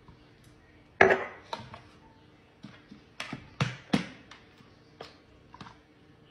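Kitchen-counter handling sounds: one loud knock about a second in, then a string of shorter clicks and taps as a plastic mustard squeeze bottle is picked up and worked open.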